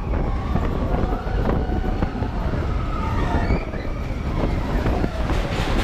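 Roller coaster train running along its track: a loud, steady rumble with wavering high tones gliding over it.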